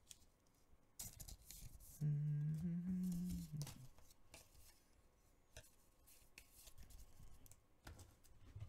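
A man hums a short phrase for about a second and a half, about two seconds in, stepping up slightly in pitch. Around it, trading cards are being handled with faint rustling and soft clicks.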